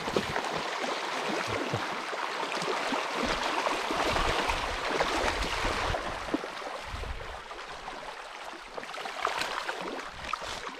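Shallow stream rushing over rocks, a steady splashing hiss that is louder in the first half. Low rumbles of wind on the microphone come and go.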